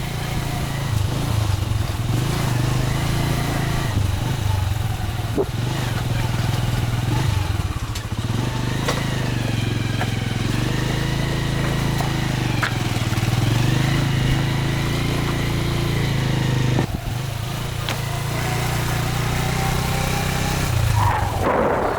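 Motorcycle engine running under way, its pitch rising and falling as the throttle is worked over a rough track, with a few sharp knocks.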